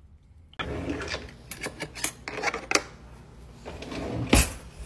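Metal cutlery being handled at an open kitchen drawer: rustling with a quick run of light clicks and clinks, then one sharp knock near the end.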